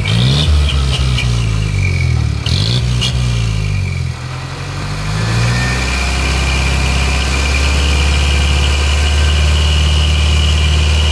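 Isuzu Giga truck's diesel engine running through an aftermarket 'knalpot cung' muffler: the throttle is blipped up and down several times, then about six seconds in the engine settles into a steady note. A thin high whine rides over the steady stretch.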